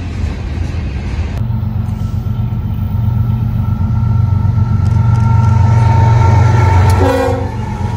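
Freight train noise: double-stack well cars rolling past, then diesel freight locomotives approaching and passing close with a steady low engine drone that builds to its loudest about five to seven seconds in. A short tone sounds just after the loudest point.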